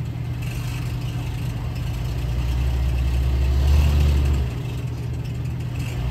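Cadillac CTS VSport's twin-turbo V6 running, swelling louder for about a second partway through and then settling back. The car makes a rattly sound under light throttle, the sign of an exhaust leak at a cracked, rusted weld on the bracket joining the two exhaust pipes under the front seats.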